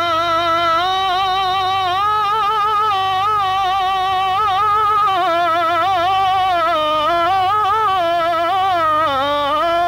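A man singing a Punjabi naat, holding one long unbroken melismatic line with a wavering, ornamented pitch and no instruments under it.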